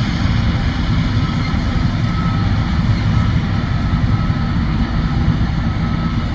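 John Deere combine harvester running steadily under load while harvesting soybeans, a constant low engine and machinery drone.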